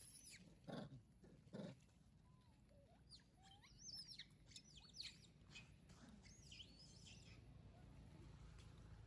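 Faint birds chirping in quick high calls through the middle stretch, with two or three short soft knocks or rustles in the first couple of seconds.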